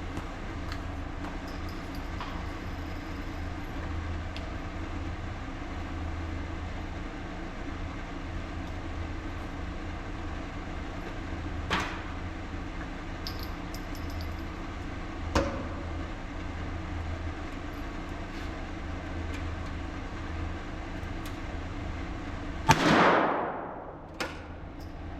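A single .22 LR rifle shot near the end, a sharp crack with a ringing decay, over a steady low hum. Two fainter sharp cracks come earlier, and a small click follows the shot.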